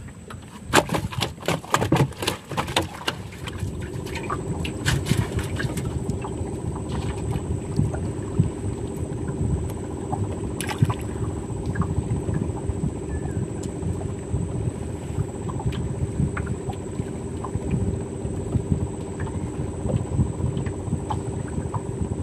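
A run of knocks and clatter, then a boat's motor starts running steadily about three seconds in: an even hum over a low rumble, with water sounds.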